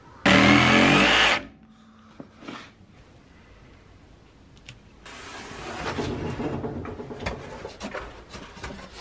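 A power tool runs in one short, loud burst of about a second with a rising whine. Then, after a quiet pause, comes a stretch of rustling and scattered light knocks as building materials are handled on the van floor.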